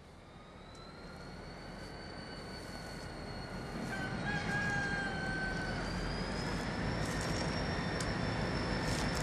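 EMD GP40-2 diesel locomotive with its road slug approaching, a low engine rumble and a high steady whine growing louder. A rooster crows once, about four seconds in.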